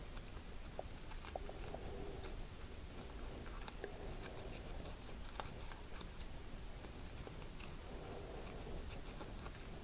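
Faint rustling and small scattered crinkly ticks of ribbon loops being handled and pulled apart by fingers.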